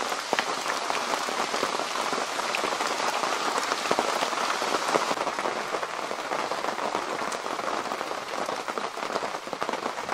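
Heavy, steady rain: a dense patter of drops on the canvas of a military Arctic tent and the vegetation around it.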